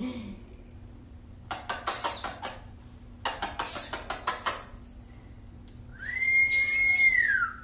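Common marmoset calling: high, thin whistles and quick trains of chirps, rattled off in two bursts, with a longer, lower whistle that rises, holds and falls near the end.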